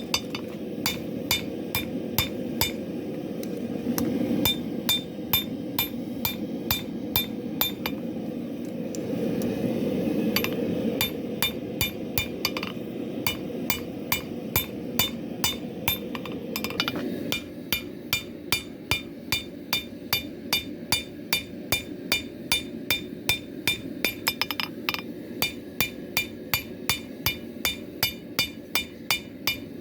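Hammer blows on steel at an anvil, forging a W2 steel knife blade, about two strikes a second with a bright metallic ring. A steady low rushing noise runs beneath the blows and drops away about 17 seconds in.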